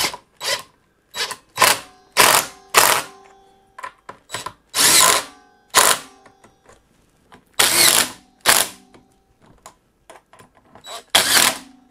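Cordless DeWalt 18V XR impact driver hammering screws into the chair's seat-back bracket, run in about eight short bursts of a fraction of a second to a second each, with quieter blips and pauses between them, as each screw is tightened down.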